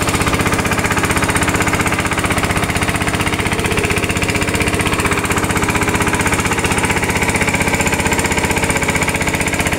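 Small single-cylinder engine of an outrigger fishing boat running steadily under way, a loud, fast, even chugging.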